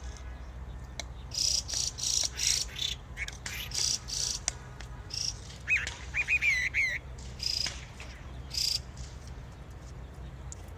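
Small songbirds singing: a run of short, high chirps repeated at uneven intervals, with a quick warbling phrase of rising and falling notes about six seconds in. A steady low hum runs underneath.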